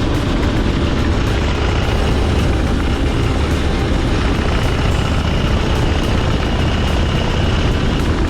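Motorcycle running steadily at road speed, with heavy wind rush on the microphone.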